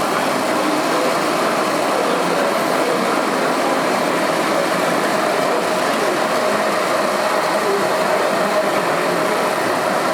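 Radio-controlled model trucks running, a steady mechanical drone with a faint held whine.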